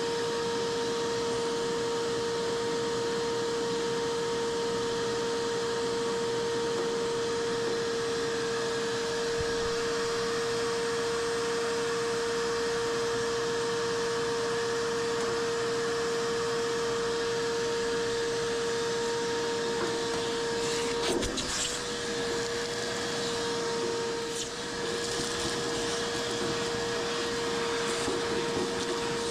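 Vacuum running with a steady whine over a rushing hiss, cleaning lint out of a dryer's clogged airway. About two-thirds of the way through there is a brief knock and the pitch wavers for a moment.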